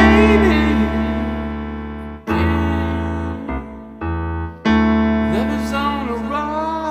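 Piano chords played on a keyboard, one struck about every two and a half seconds and each left to ring and fade. A singing voice slides through sustained notes over the first and last chords.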